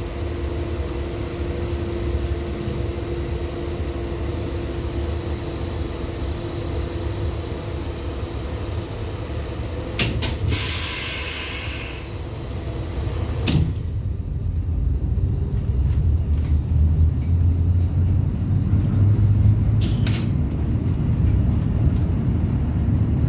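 LVS-97K tram running along its track, heard from inside the passenger cabin as a steady low rumble with a faint steady hum above it. About ten seconds in a hiss lasts a couple of seconds, ending in a click. After that the hum drops away and the low rumble grows stronger, with two more clicks near the end.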